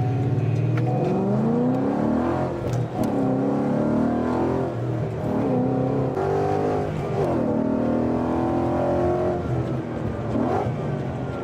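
Tuned S550 Ford Mustang engine revving as the car is driven, its pitch climbing and dropping several times, with a quick blip near the end.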